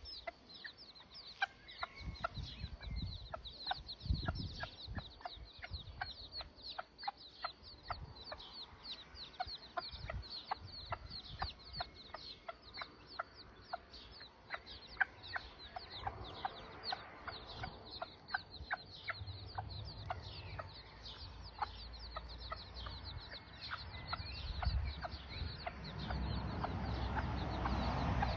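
A brood of chicks peeping constantly in short, high cheeps that fall in pitch, with a broody mother hen clucking among them.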